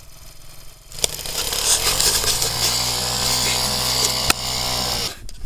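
Small vehicle engine revving up about a second in and then running at steady high revs, with one sharp click about four seconds in; the sound cuts off abruptly near the end.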